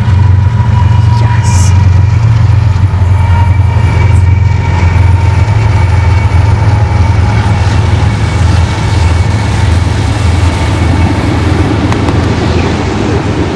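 GE ES44AC diesel-electric locomotives hauling a freight train past at close range, with a loud steady engine drone and a thin steady high tone over it. The drone eases a little in the last few seconds as the locomotives pull away and the autorack cars roll by.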